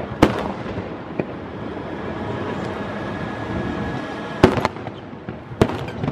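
Aerial firework shells bursting in sharp bangs: one about a quarter second in, a faint one about a second in, then a loud cluster of three or four between about four and a half and six seconds.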